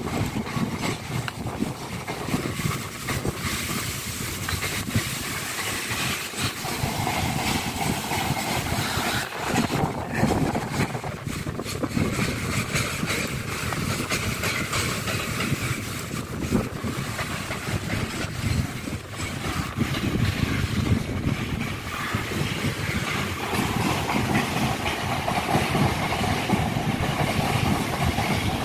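Intermodal container freight train's wagons rolling past on the line, a steady rolling noise throughout.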